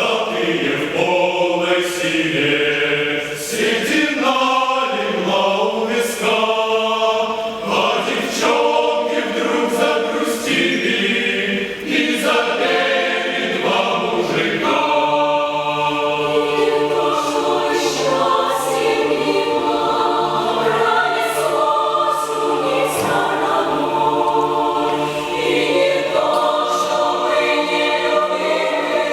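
A choir singing in several voice parts, with long held chords in the second half.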